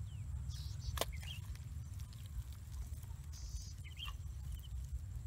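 Small birds chirping in short high trills several times over a steady low rumble, with a sharp click about a second in.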